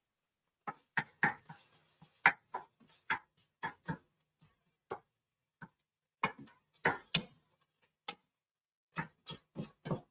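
Wooden spoon knocking and scraping against a pan as food is stirred: irregular light clicks, two or three a second, with short pauses.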